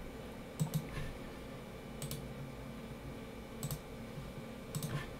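A computer mouse clicking about six times at irregular intervals, with two clicks close together near the end.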